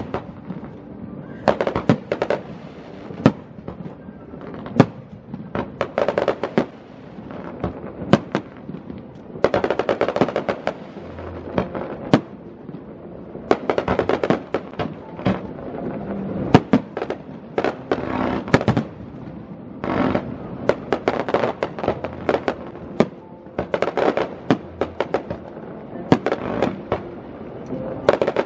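Fireworks display: aerial shells bursting in sharp bangs at irregular intervals, at times several a second, with bursts of crackling between them.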